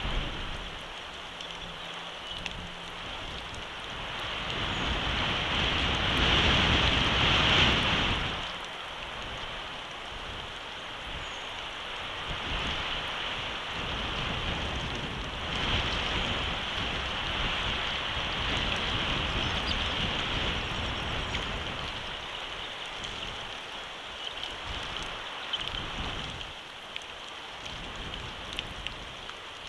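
Steady rain falling, with gusting wind buffeting the microphone; the strongest gust swells up about five seconds in and dies away around eight seconds, and weaker gusts come and go after.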